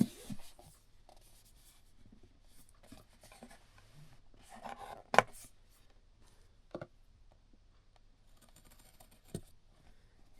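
Quiet rustling and scraping of a product box being handled and opened, with a sharp tap about five seconds in and two fainter clicks later.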